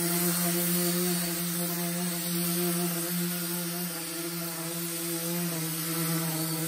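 Pneumatic mini polisher with a foam pad spinning against a plastic headlight lens while buffing it with compound: a steady hum over a constant hiss of air.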